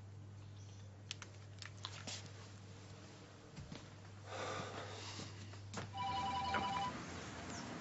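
Mobile phone ringing: a short burst of trilling two-tone ring about six seconds in, after a few faint clicks as a phone is handled and dialled.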